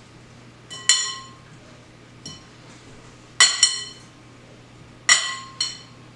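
Clear glass mixing bowl knocked while scone dough is worked by hand inside it: about five sharp clinks, each ringing briefly, the later ones coming in quick pairs.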